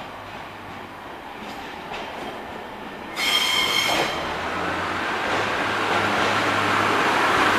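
Class 142 'Pacer' diesel multiple unit pulling out and passing close, its underfloor diesel engine humming under a rumble of wheels on rail that grows louder. About three seconds in a sudden high-pitched squeal sounds for under a second.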